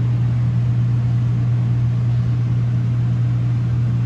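RV air-conditioning unit running: a loud, steady low hum.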